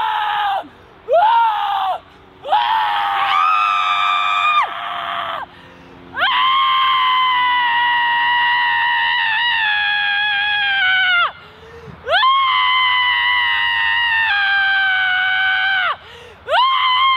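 A woman screaming in anguish: a string of high, sustained screams with short gasps between. Three short ones come first, then two long ones lasting about five and four seconds, each falling in pitch as it breaks off, and another begins near the end.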